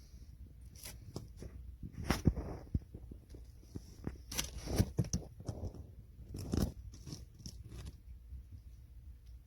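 Dry dog food kibble crunching and rattling in irregular bursts. The loudest bursts come about two seconds, four and a half seconds and six and a half seconds in.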